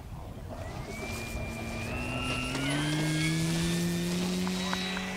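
Electric brushless motor and 17x12 propeller of a scale RC Van's Aircraft RV-4 spooling up to takeoff power on a grass runway. The whine rises in pitch from about a second in, grows louder, and holds steady near the end.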